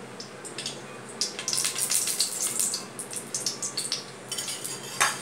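Cooking oil crackling and spitting in a non-stick kadai on the stove as it is spooned in, a dense patch of fine crackles for about two seconds, with a single knock near the end.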